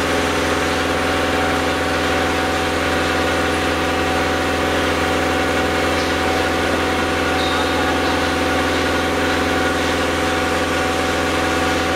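Building-material lifting machine (a rope hoist) running steadily: a constant mechanical drone whose pitch does not change.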